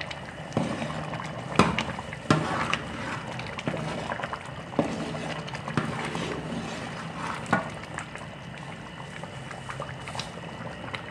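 Carrot halwa bubbling and sizzling in ghee in a large steel pot while a metal spoon stirs it, scraping and knocking against the pot about eight times. This is the roasting (bhunai) stage, with the milk reduced to khoya and frying in the ghee.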